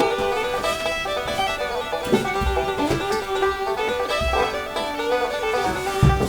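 Bluegrass-style background music led by banjo, with fiddle.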